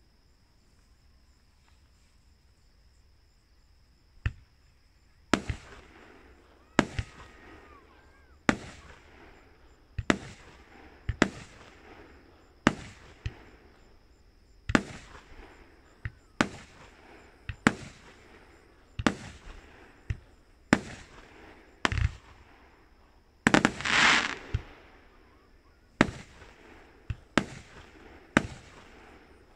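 Aerial fireworks shells bursting: after a few quiet seconds, a steady series of sharp bangs comes roughly every second and a half, each trailing off in a fading echo. About two-thirds of the way in, one louder, longer burst lasts about a second.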